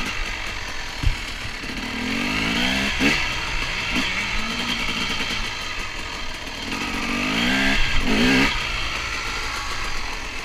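KTM 250 EXC two-stroke enduro motorcycle engine heard from onboard, revving up and falling back repeatedly as the bike is ridden, with its strongest climbs about two to three seconds in and again around eight seconds. A single sharp thump comes about a second in.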